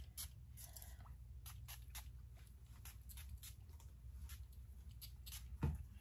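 Faint, irregular small clicks and taps from handling small objects, with one low thump about five and a half seconds in.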